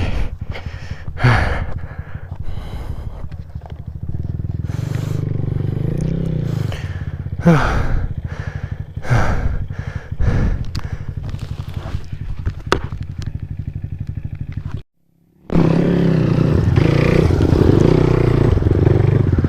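Motorcycle engine running and revving while riding a rough off-road track, with scattered knocks and rattles. The sound drops out briefly about 15 seconds in, then the engine returns louder and steady.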